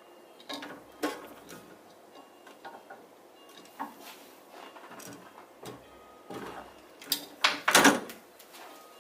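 Black plastic bracket being handled and set down on a drill press's metal table: scattered clicks and knocks, with the loudest run of knocks and scraping about seven to eight seconds in as it is slid into place under the bit.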